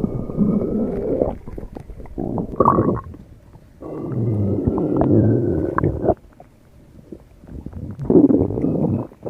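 Growling stomach sound effect: four separate gurgling rumbles with short quiet gaps between them, the longest lasting about two seconds in the middle.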